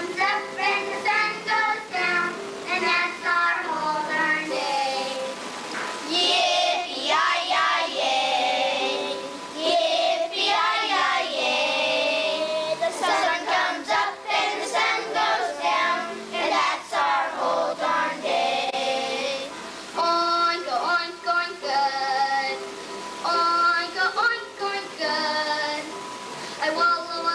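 Young children singing a song from a school musical.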